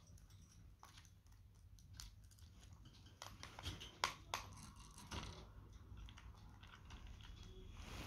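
Budgies pecking and eating, heard as faint, irregular crunching clicks of their beaks, with a couple of sharper clicks about four seconds in.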